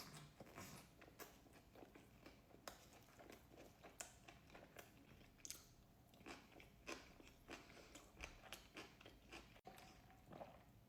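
Faint close-up chewing and crunching of fast food in the mouth, with many small irregular clicks and crunches.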